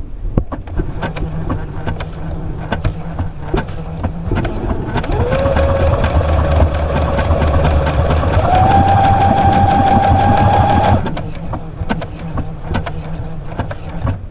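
Brother computerized sewing machine stitching out a letter S pattern: motor running with rapid needle ticks, speeding up about five seconds in and rising higher again around eight seconds, then stopping after about eleven seconds.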